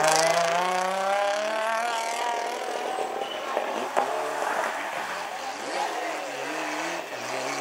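Rally car engine pulling hard away, its pitch climbing steadily for a couple of seconds before fading into the distance. About four seconds in there is a sharp crack, then a second rally car comes through the bend, its engine rising and falling as the driver works the throttle.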